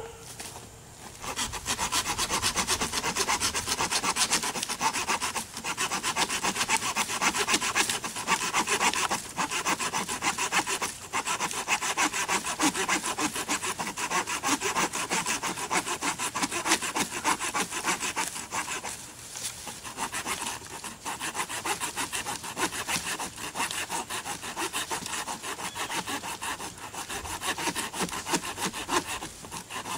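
Saw-tooth back spine of a SOG SOGfari 13-inch machete sawing back and forth through a fallen tree limb: a continuous rasp of teeth in wood, stroke after stroke, with a few short pauses.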